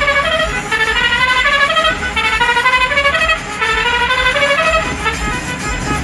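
Tourist bus's musical air horn playing a tune of short held notes that step up and down and repeat the same phrase several times. The bus's low engine and road rumble runs underneath.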